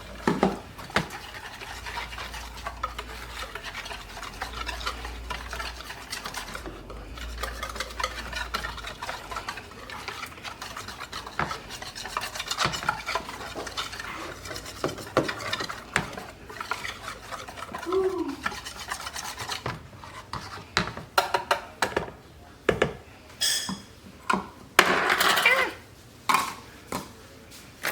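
A small whisk stirring a thick batter in a container, scraping and clicking against the sides, with louder knocks and scrapes near the end.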